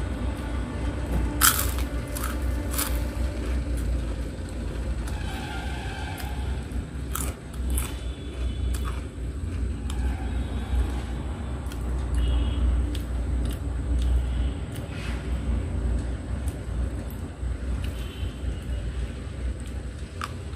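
Crisp fried crackers crunching as they are broken and eaten, in scattered sharp cracks, over a steady low rumble.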